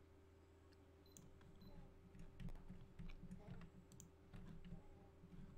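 Faint computer mouse clicks and keyboard presses, scattered one by one, over a low steady hum.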